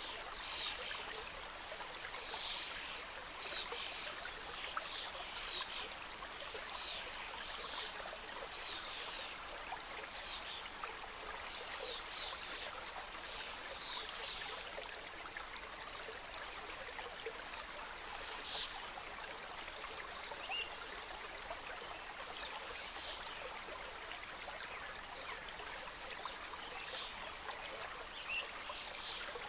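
Mountain stream cascading over rocks: a steady rush of water with frequent bright splashes and gurgles, busier in the first half.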